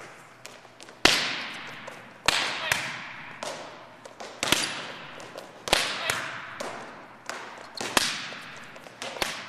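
Volleyballs being struck in a gym: a sharp slap about every second, sometimes two in quick succession, each echoing off the hall's walls.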